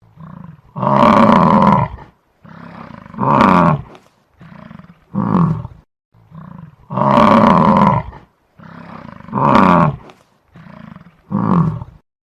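A large animal roaring: three loud calls, each led in by a softer low grunt, some sliding down in pitch. The same set of three comes again about six seconds later.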